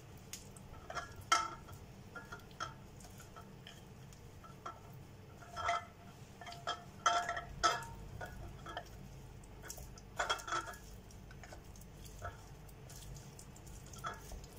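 Wooden spoon stirring dark chocolate and butter in a glass bowl, with irregular scrapes and light knocks and clinks against the glass.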